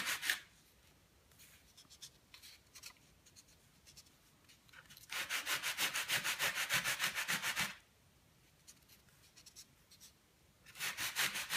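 Sanding block rubbed over a model glider wing in quick back-and-forth strokes: a short burst at the very start, a longer run of about two and a half seconds from about five seconds in, and another starting near the end, with faint light scratches in the pauses.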